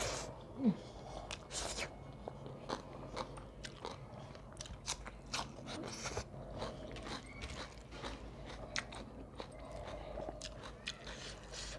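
Close-miked chewing of a rice-and-curry meal, with many short wet mouth clicks and small crunches at an uneven pace, and one louder mouth noise less than a second in.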